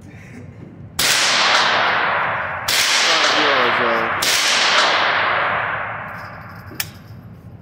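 Three rifle shots about a second and a half apart, each ringing out with a long echo down the indoor range, followed near the end by a single sharp metallic click.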